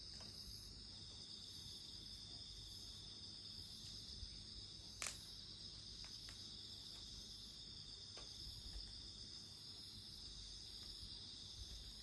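Steady chirping of crickets in a night insect chorus, with a few sharp pops from a burning campfire, the loudest about five seconds in.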